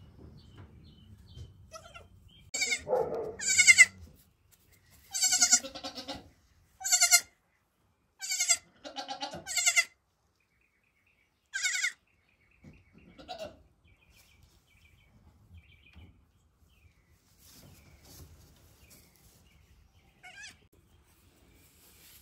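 Young Nigerian Dwarf goat kids bleating: about eight loud, high calls close together in the first half, then one or two faint bleats later on.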